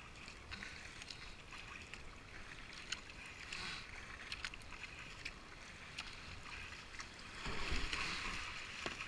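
Kayak paddle strokes dipping and splashing in fast, foamy river water, with short splashes scattered throughout. The rush of whitewater grows louder near the end as the kayak enters a rougher stretch of rapid.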